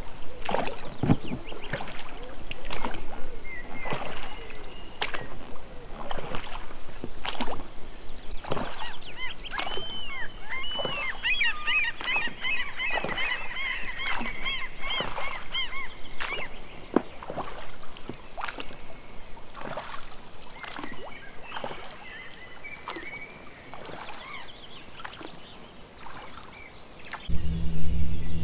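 Water splashing and knocking in irregular strokes about once a second, from an inflatable boat being rowed on a calm lake. Birds chirp in the middle stretch. About a second before the end a low steady hum sets in.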